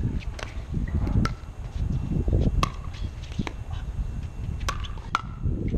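A pickleball rally: sharp hollow pops of paddles striking the plastic ball back and forth, about six in all at irregular spacing, over a low rumble.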